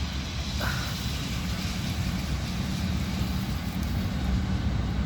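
Steady low rumbling outdoor background noise, with one short rising chirp about half a second in.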